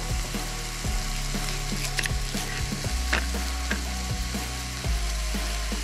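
Rump steak sizzling as it fries in a pan, with a run of short knocks, about three a second, from a knife cutting onion on a board.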